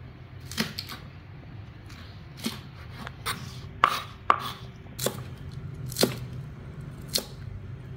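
Kitchen knife chopping spring onion on a plastic cutting board: about nine separate sharp taps at an uneven pace.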